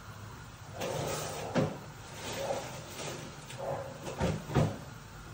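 A few sharp knocks and clatters, one about one and a half seconds in and two close together near four and a half seconds, with rustling in between, like kitchen items or a cupboard being handled.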